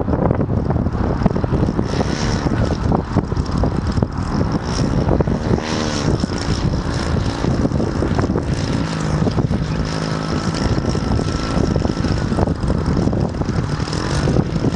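Radio-controlled model airplane's engine running steadily with its propeller turning as the plane taxis on the runway.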